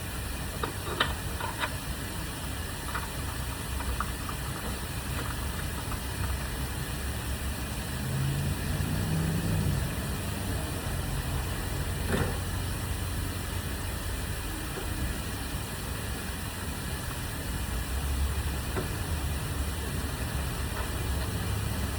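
A steady low rumble like an idling engine, with a few light clicks in the first few seconds and a single knock about twelve seconds in.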